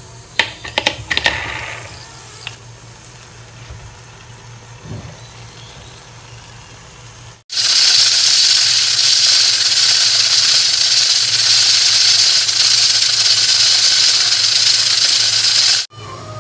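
A few sharp metallic clicks as the aluminium pressure cooker's lid and weight are handled, then a faint hiss. About halfway in, a loud steady hiss of steam escaping from the pressure cooker's weighted vent, which cuts off suddenly near the end.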